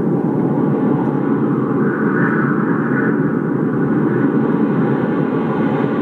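A steady, loud rushing noise with no clear pitch, muffled as in an old low-quality recording.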